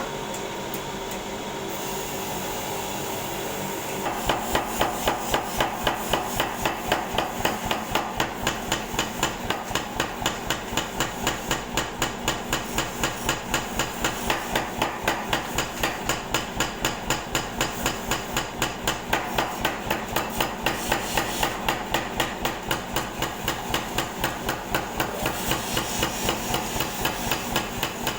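Air hammer striking in a steady, even rhythm of about three blows a second, starting about four seconds in after a steady running noise.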